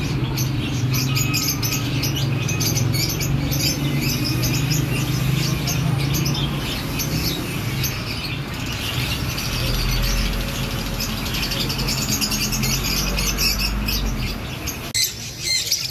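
Small caged birds chirping rapidly and continuously, many short high chirps overlapping, over a low steady hum.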